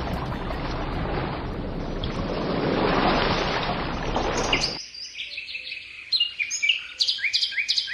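A sound machine plays a steady rushing noise that swells a little and cuts off sharply about five seconds in. A quick run of high, falling bird chirps follows.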